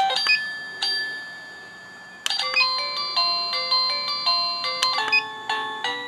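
HTZSAFE wireless alarm receiver playing its selectable electronic chime tunes as the tone button is pressed through them. A single chime rings and fades, then a new short melody starts about two seconds in and changes to another about five seconds in.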